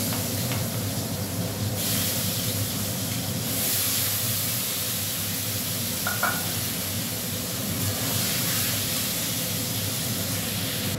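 Onions and potato pieces sizzling as they fry in hot oil in a kadai, a steady hiss that grows louder about two seconds in and again a second and a half later, with a low steady hum under it.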